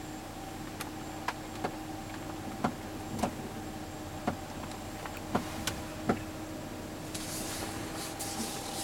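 Body creaking of a 2009 Volvo XC70 flexing while it reverses: a string of short, sharp creaks at irregular intervals over a steady cabin hum, with a brief hiss near the end.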